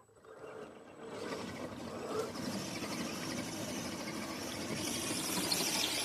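Radio-controlled rock crawler's small electric motor and gearbox whining as it drives, starting about a second in and growing louder.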